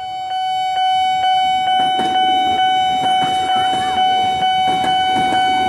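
Railway level-crossing warning alarm sounding, very loud: a steady electronic tone with a regular tick about four times a second, coming on at the start.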